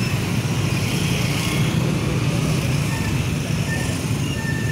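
Small motor scooter engines running steadily at low speed, a continuous low drone mixed with wind and road rumble on the microphone. A few faint short high chirps come in the second half.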